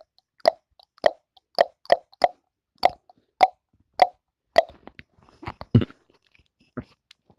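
A run of sharp, slap-like smacks, roughly two a second for about five seconds, then fainter scattered knocks and a lower thump. An unexplained household noise, which the family puts down to the washing machine.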